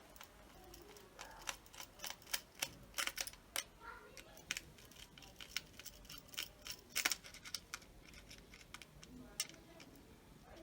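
Scattered small clicks and taps of hands and a tool working on an opened plastic multi-plug board, prying at its melted switch. The sharpest click comes about seven seconds in.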